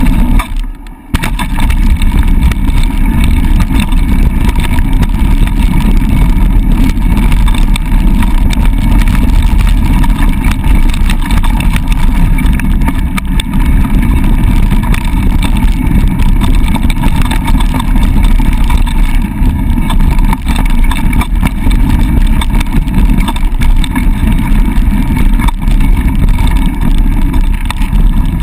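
Loud wind buffeting on an action camera's microphone, mixed with tyre rumble and chatter from a mountain bike on a loose dirt downhill trail. The noise drops away briefly about a second in.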